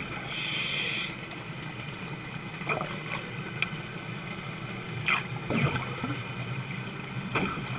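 Underwater sound on a scuba dive: a steady low hum, with a short hiss of regulator breathing about half a second in and a few scattered bubble gurgles later on.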